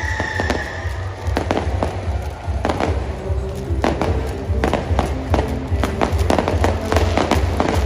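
Aerial fireworks shells bursting in quick succession: a string of sharp bangs and crackles, several close together around the four- to five-second mark and again near the end. Music plays underneath with a steady low pulse.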